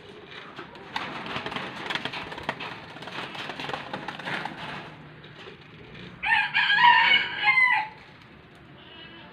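A rooster crows once, a single call of just under two seconds about six seconds in. Before it come a few seconds of rustling and light clicking.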